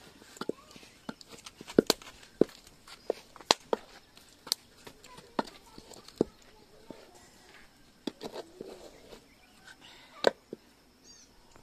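Irregular sharp knocks and clicks, a few louder than the rest, with brief faint voices now and then.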